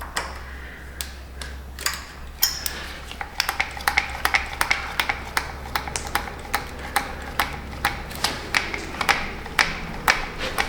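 Manual grease gun being pumped on an excavator pin's grease fitting, a sharp click with each stroke of the lever. The clicks are scattered at first and settle after about three seconds into a steady rhythm of two to three a second.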